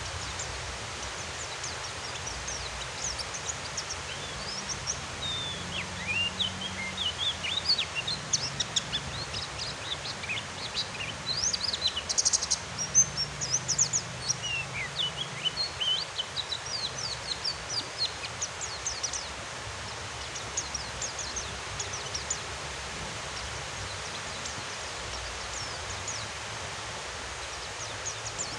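Steady rain hiss with a white-eye twittering over it in rapid short high chirps, busiest through the middle and thinning out toward the end.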